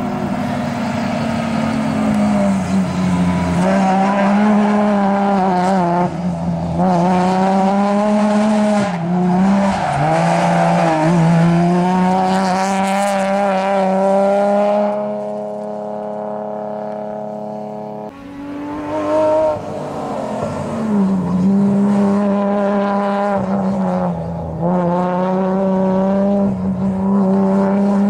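BMW E46 3 Series coupe's engine revving hard on a slalom run, its pitch rising and falling with throttle and gear changes, with some tyre squeal in the turns. For a few seconds past the middle the note holds steady and quieter before it rises and falls again.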